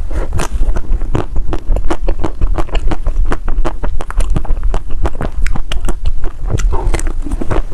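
Close-up chewing of crispy dry ice cream: a dense, loud run of crunching clicks, several a second, over a low rumble.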